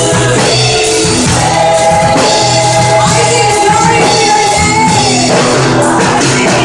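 Loud music with singing and a steady beat, in the manner of a band-backed worship song.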